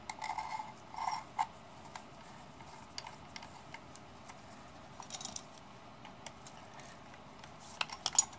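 Small metal scrapes and clicks of a steel through-bolt being slid into a 10MT starter motor's housing: a brief ringing scrape at the start and again about a second in, then scattered light clicks and a few sharp taps near the end.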